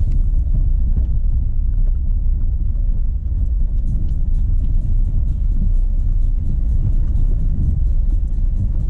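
Renault Sandero Stepway 2 driving on a dirt road: steady low rumble of the tyres and suspension over the rough surface.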